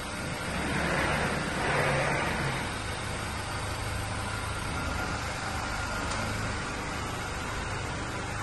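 Maxus pickup truck's engine idling with a steady low hum, swelling louder for a moment about a second in.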